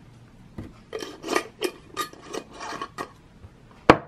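A run of short rasping scrapes, about three a second, then a single sharp click near the end.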